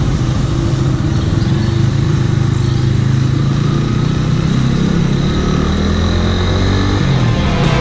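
Motorcycle engine running at low speed as the bike pulls away and slowly picks up speed. Music comes in near the end.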